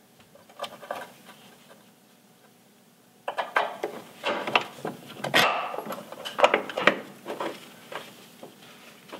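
A steel leaf-spring shackle and its bolts clinking and knocking against the frame hanger as they are fitted by hand. A few faint clicks, then from about three seconds in a busy run of sharp metal clicks and knocks.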